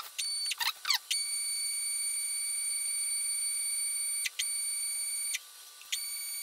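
Stepper motor driving a GT2 belt and 3D-printed pulley to run the plunge router base up its pillars, giving a steady high-pitched whine of several tones. The whine cuts out and restarts a few times, with short sliding pitch sweeps in the first second.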